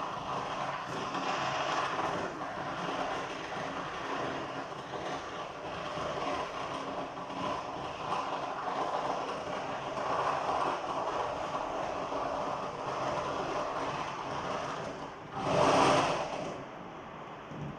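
Many fireworks and firecrackers going off at once, a steady dense crackling with one louder burst of about a second near the end.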